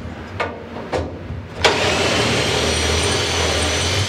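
A couple of light knocks, then a handheld power drill runs steadily for about two and a half seconds and stops abruptly, as when drilling holes for blind rivets in the windshield support brackets.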